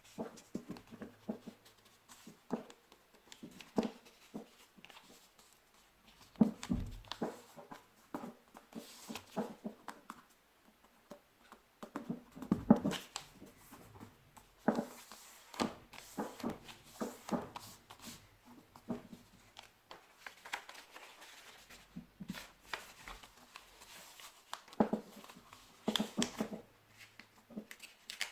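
A sheet of paper being handled, folded and creased by hand, heard as irregular rustles and crisp creasing sounds, with a few louder crinkles along the way.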